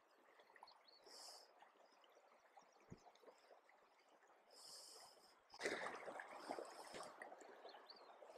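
Faint creek water running over rocks, with a short burst of louder rushing noise about five and a half seconds in.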